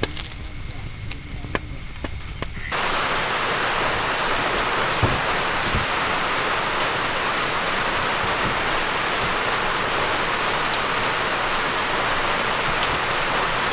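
Ember fire crackling with sharp pops under fish grilling on a wire rack; about three seconds in it cuts to a steady, heavy hiss of rain falling on plastic sheeting.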